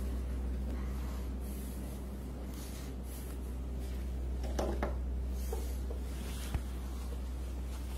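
Handheld eraser wiping a whiteboard in a series of soft strokes, with a brief sharper sound about halfway through, over a steady low electrical hum.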